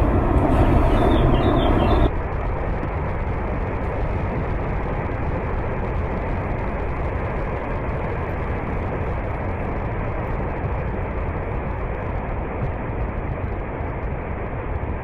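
Rockslide tumbling down a mountainside: a steady rushing roar. About two seconds in, a louder, fuller noise cuts off abruptly to the steadier, duller roar.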